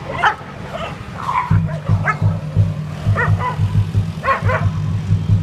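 Street dogs yelping and whining in short, high cries, several times over, during a scuffle and mating. About a second and a half in, a steady low pulsing beat comes in underneath.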